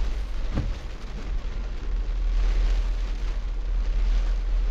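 Steady low rumble with a hiss over it, rising and falling a little, and a single faint click about half a second in.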